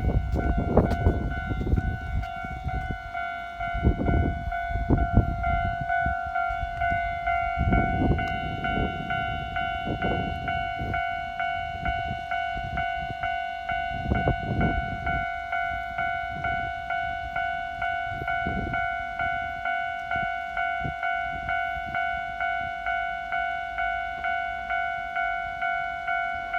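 Japanese level-crossing warning bell ringing in a steady repeated ding, about one and a third strikes a second. A train passes over the crossing through roughly the first half, with rumble and wheel clatter. After that the bell goes on alone.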